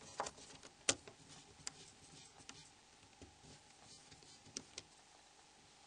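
Faint, scattered small clicks and ticks of a small screwdriver working the screws out of a Nokia E70 phone's casing, with a few sharper clicks about a second in and again near four and a half seconds.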